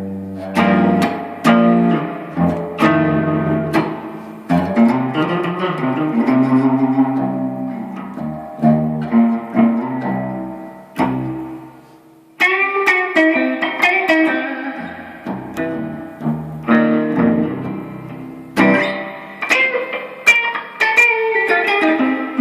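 Guitar playing: plucked notes and chords ringing and fading over low bass notes, dying away briefly about twelve seconds in before starting again.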